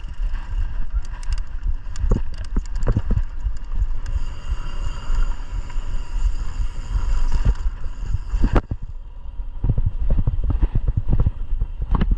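Mountain bike running over rough trail, the frame, chain and suspension rattling and thumping in quick irregular knocks. A steady high buzz runs for a few seconds in the middle.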